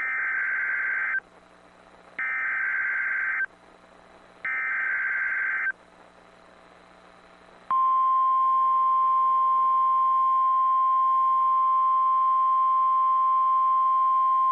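NOAA Weather Radio emergency alert signalling: three short bursts of warbling digital SAME header data, each about a second long and a second apart. About eight seconds in comes the steady, single-pitched warning alarm tone that announces an alert broadcast, here a tornado watch.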